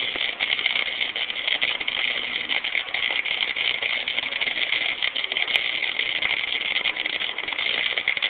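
Electric arc welding: a steady, irregular crackle and sizzle from the welding arc.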